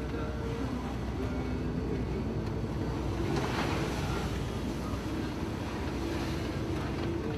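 Loaded Volvo dump truck's diesel engine rumbling at low speed as it crawls down a steel loading ramp, with wind buffeting the microphone. A short hiss comes about three and a half seconds in.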